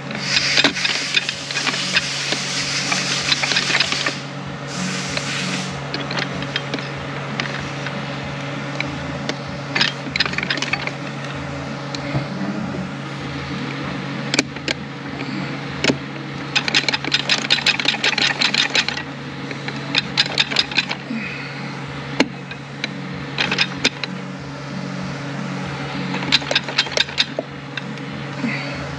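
Metal clicking and rattling in bursts as a drum and its shaft are wiggled and turned by hand inside a Ford 10R80 ten-speed automatic transmission case, working the splines and clutch plates into line so the drum will drop down. A steady low mechanical hum runs underneath.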